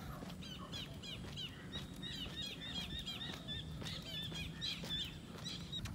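Birds chirping, many short, quick notes overlapping, busiest in the middle, over a steady low rumble.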